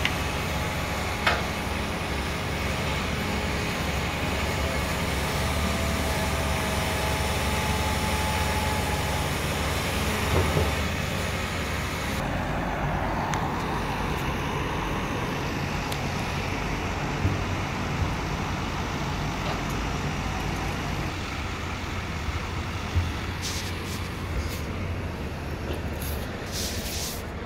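Hyundai excavator's diesel engine running steadily, with a wavering whine between about four and nine seconds in. The sound turns duller about twelve seconds in, and a few sharp clicks come near the end.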